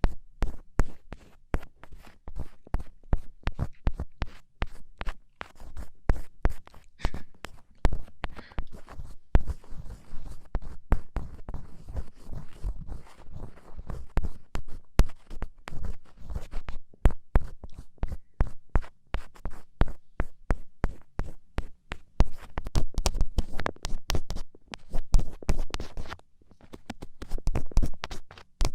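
Ear-cleaning tool scraping and scratching inside an ear canal: a dense, irregular run of small scrapes and clicks, busiest near the end.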